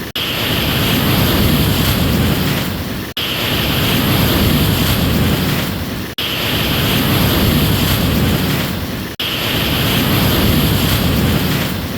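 Continuous rush of ocean surf. A short recording is looped about every three seconds, and each repeat is broken by a brief dropout.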